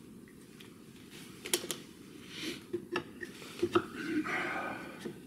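Steel brad point drill bits being handled and set into a wooden holder block: a few sharp clicks and taps of metal on wood and metal, then a short rasping slide near the end.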